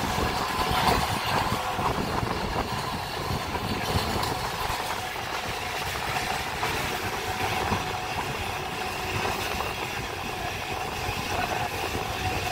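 Passenger train running at speed, about 100 km/h, heard from on board: a steady rushing and rattling running noise with a faint steady whine.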